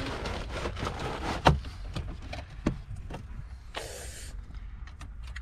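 Plastic interior trim being handled and pried: scattered light clicks and knocks, one sharper click about a second and a half in, and a short scrape near four seconds, over a steady low rumble.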